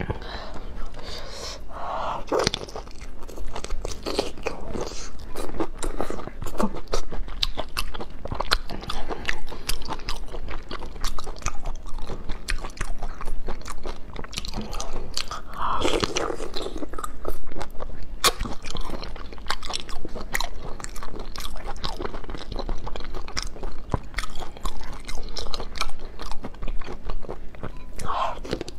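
Close-up eating sounds: biting and chewing whole marinated prawns in their shells, a dense run of wet crackling clicks with louder mouthfuls now and then.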